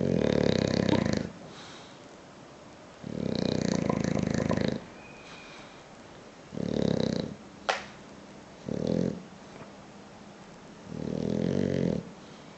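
Bulldog snoring in its sleep: five snores a few seconds apart, some long and some short. A brief sharp click comes a little past halfway.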